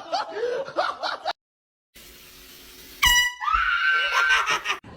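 Air horn blasting suddenly about three seconds in, one loud high-pitched note, followed by a high, wavering yell lasting over a second. Voices are heard briefly at the start, before a moment of dead silence.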